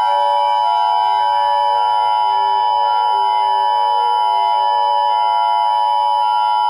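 Loud, steady electronic emergency-alert tone, several pitches sounding together, holding without a break, with fainter wavering tones underneath.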